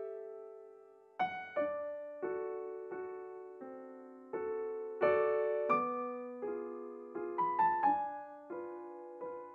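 Background music: a slow solo piano piece, single notes and chords struck and left to fade.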